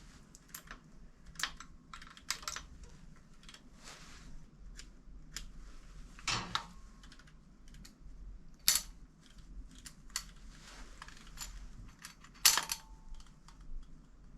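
Small metal distributor parts clicking and clinking as they are handled and set down, in scattered separate knocks. The loudest comes about twelve seconds in and rings briefly.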